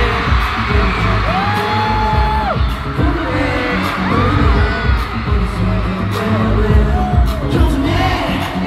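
K-pop dance track performed live through a stadium sound system: a heavy bass beat with sung vocals, and fans screaming over it.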